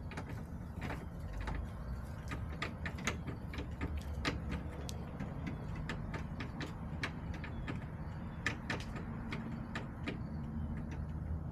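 Chickens pecking and scratching in the coop: sharp, irregular taps and clicks, a few a second, over a steady low rumble.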